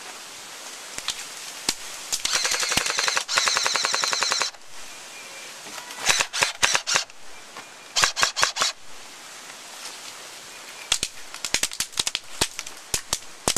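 Airsoft gunfire. A few single shots come first. About two seconds in there are long rapid full-auto bursts, then shorter bursts, then scattered single shots near the end.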